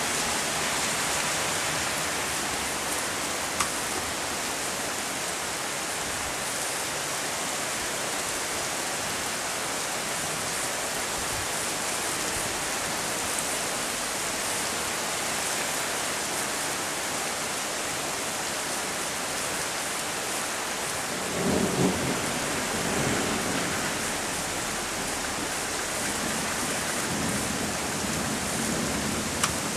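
Heavy rain pouring steadily in a thunderstorm, with a rumble of thunder about twenty-one seconds in and another low rumble near the end.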